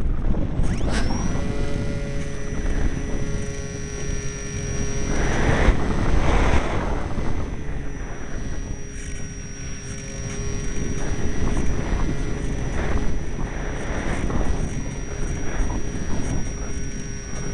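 Strong wind buffeting the microphone with a heavy rumble, swelling and easing. About a second in, a steady high whine with several fainter lower tones comes in and holds.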